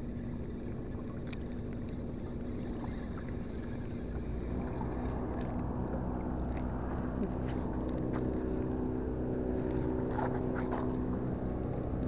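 Steady drone of a boat engine, growing louder about four seconds in, with a few faint ticks over it.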